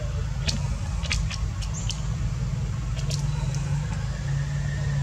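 Steady low hum of an engine running nearby, with a handful of short, sharp high chirps scattered through the first few seconds.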